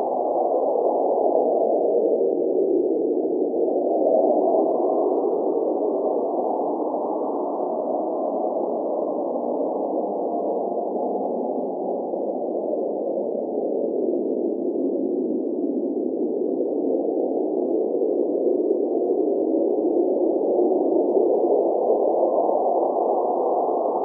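Blizzard wind blowing steadily, a low hollow rush whose pitch slowly swells up and sinks back.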